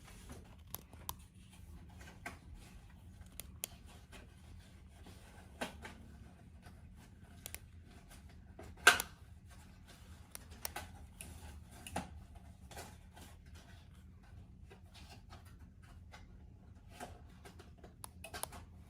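Quiet room with a steady low hum and scattered light clicks and taps, one louder tap about nine seconds in.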